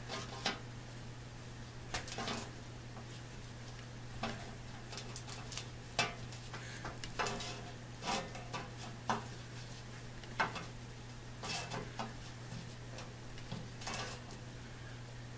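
Uneven metallic clicks and clinks, roughly one every second, from a Dunlop saw set being moved along and squeezed onto every other tooth of a crosscut handsaw to set the teeth.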